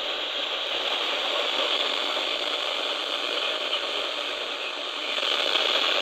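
Static hiss from a Midland ER50 weather radio's speaker, tuned to a NOAA weather band channel where no station is coming in. It gets slightly louder about five seconds in.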